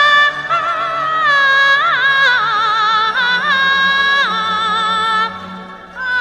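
Chinese traditional orchestra playing the instrumental introduction to a Yue opera excerpt. A high solo melody with wide vibrato leads over a steady low accompaniment, and the music eases off briefly near the end.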